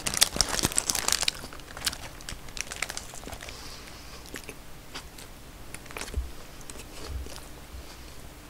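Close-up mukbang eating sound: biting into a large Burger King Red King Crab Whopper, with a burst of crunching in the first second or so, then quieter chewing with scattered crackles and the paper wrapper crinkling.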